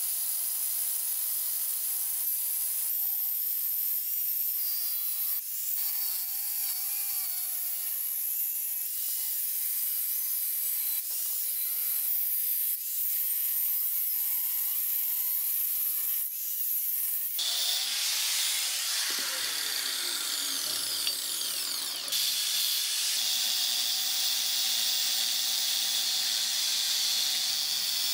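Angle grinder cutting and grinding a steel plate: a steady high hiss of the abrasive wheel on metal over the motor's wavering whine. About seventeen seconds in the sound turns louder and coarser, with a tone sliding down before the whine settles again.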